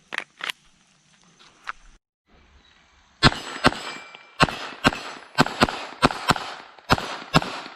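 A handful of light clicks, then a string of about ten gunshots from about three seconds in, fired in quick pairs and short strings.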